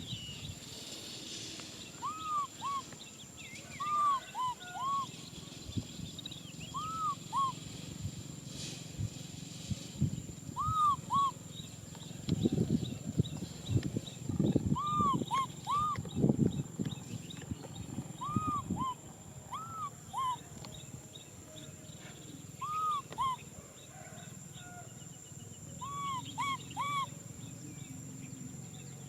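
Baby macaque crying out again and again with short, rising-and-falling squeaky calls, usually two or three in quick succession. Some low rustling and knocking comes through the middle.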